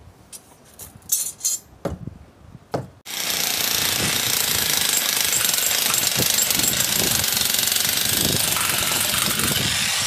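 A handheld electric demolition hammer (breaker) starts about three seconds in and runs continuously, chiselling into the gravelled ground. A few light knocks and clinks of tools come before it starts.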